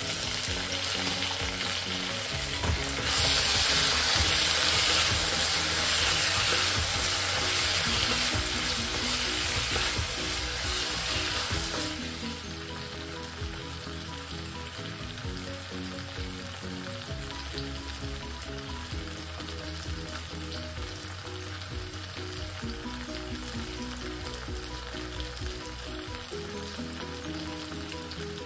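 Onions, tomatoes and green chillies sizzling in hot oil in a stainless steel kadai, stirred with a wooden spatula. The sizzle is loudest for about nine seconds from about three seconds in, then settles to a quieter, steady fry.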